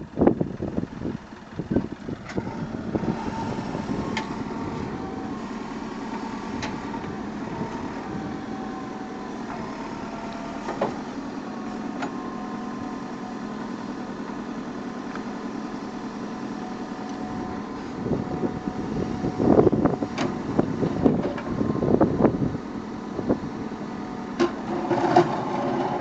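JCB backhoe loader's diesel engine running steadily, with a whine that shifts in pitch as the hydraulics swing the backhoe arm. From about two-thirds of the way in come louder irregular surges and sharp knocks as the bucket works in the water.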